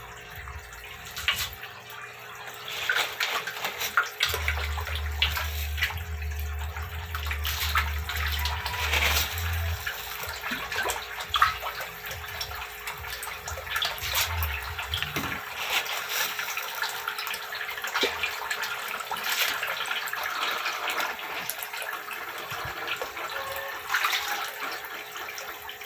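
Water trickling and splashing in an aquaponics fish tank and filter: a steady rush of running water, dotted with many small splashes and drips.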